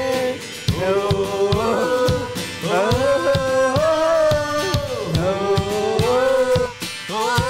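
Live worship music: sung melody over guitar with a steady drum beat.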